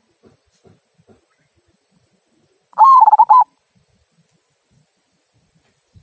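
Zebra dove (perkutut) with a 'kung' voice giving one cooing phrase of rapid pulsed notes about three seconds in, lasting under a second and dipping slightly in pitch at the end, the kind of call used as a lure to set other doves singing.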